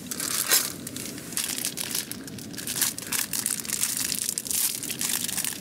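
Plastic food packaging crinkling and crackling in an irregular run of sharp rustles as it is handled.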